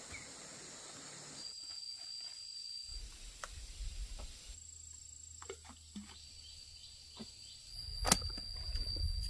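Rural outdoor ambience: a steady high-pitched insect drone, a low rumble that comes and goes, and scattered clicks, the sharpest about eight seconds in.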